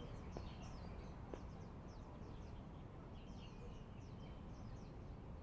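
Small birds chirping, many quick high notes that each drop in pitch, over a steady low outdoor rumble.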